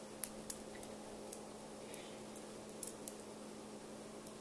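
Scattered light clicks and ticks of small metal kit parts being handled on a tabletop, over a steady low hum.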